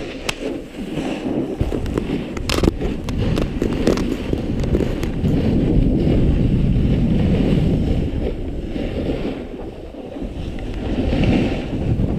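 Wind rushing over an action camera's microphone during a snowboard run downhill, mixed with the board sliding and scraping over packed snow. The rush swells and eases, dips about ten seconds in, then builds again.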